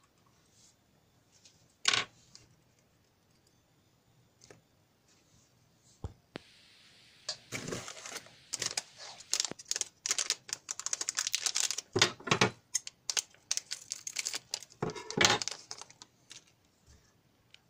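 Hands handling alligator-clip leads and small parts on a workbench: one sharp click about two seconds in, then from about seven seconds a busy run of clicks, rattles and crinkling that stops near the end.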